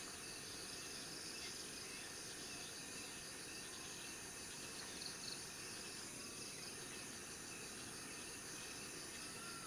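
Steady chorus of insects calling high and continuously over a low background hiss, with a faint short whistled call near the end.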